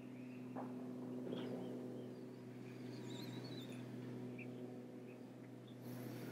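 Faint background with a steady low hum and a few soft high chirps around the middle, then a soft rush of nasal breath near the end during a slow yoga breath hold.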